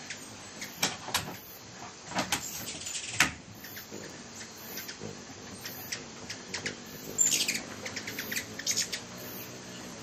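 Hummingbirds at a feeder, giving irregular sharp chip calls, the loudest about three seconds in, over a faint low hum.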